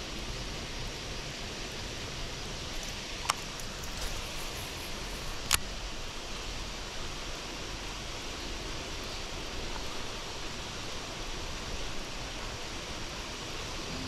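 Steady, even hiss of open-air ambience, broken by two sharp clicks about three and five and a half seconds in.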